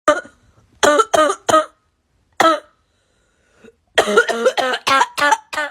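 A person coughing over and over in fits: a single cough, a quick run of three, another single, then a long fit of about seven coughs near the end. A persistent, hacking cough of the kind that can be a sign of tuberculosis.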